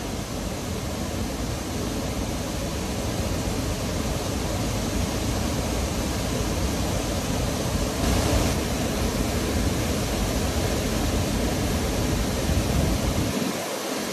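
Steady rushing noise of wind blowing across the microphone, with an uneven low rumble that briefly drops away near the end.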